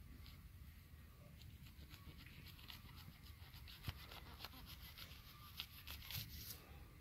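Faint crackling and rustling as a cluster of mushrooms is cut at the stem with a small knife and pulled from the grass by hand: a run of soft clicks and snaps, with the sharpest about four seconds in and again around six seconds.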